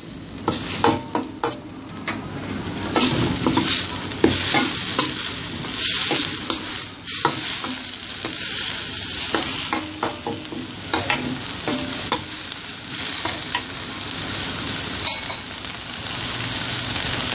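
Chopped grilled chicken and herbs sizzling as they are stir-fried in a stainless steel wok, with a metal spatula repeatedly scraping and clicking against the pan.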